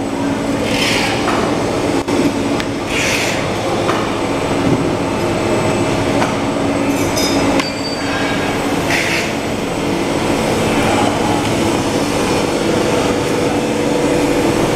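A butyl rubber tape hot-melt extrusion coating machine running: a steady mechanical din of motors and turning rollers with a constant hum, broken by a few short hisses.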